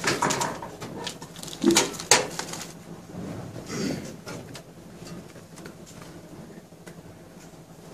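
Medical equipment being handled at a bedside trolley: a few knocks and clicks, the sharpest about two seconds in, a short rustle about four seconds in, then quieter handling noise.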